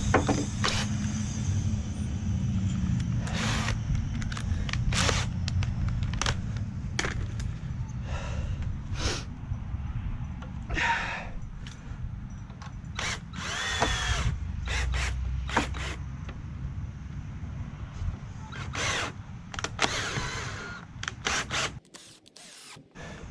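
Power drill running almost continuously, boring or driving screws into 2x4 lumber, with many sharp clicks and knocks over it. It stops about a second and a half before the end.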